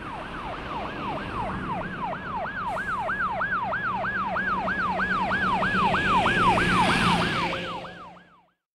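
Ambulance siren in a fast yelp, about three falling sweeps a second over a low hum, growing louder for several seconds and then fading out shortly before the end.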